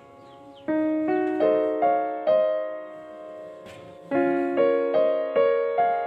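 Background piano music: single notes and chords struck roughly every half second, each ringing and fading away, with a short lull in the middle.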